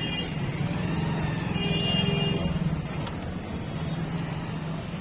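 Motor vehicle noise: a steady low engine hum, with a short high-pitched tone right at the start and another about two seconds in.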